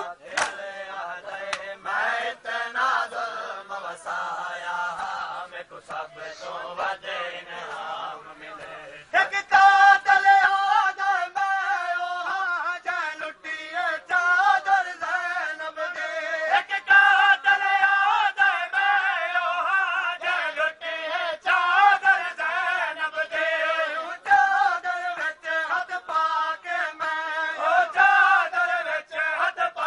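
Mourners chanting a noha together during matam, much louder from about nine seconds in, with sharp chest-beating slaps throughout.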